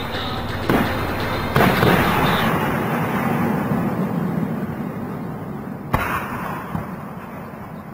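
Aerial fireworks bursting: three sudden bangs, about a second, a second and a half, and six seconds in, each followed by a long rolling rumble that slowly fades.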